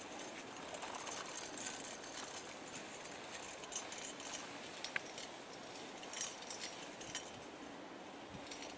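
Light metallic jingling and clinking from a Shetland pony's harness and the chain hitch of a walking snow plow as the pony pulls it through snow, with soft hoof steps. The jingling thins out near the end.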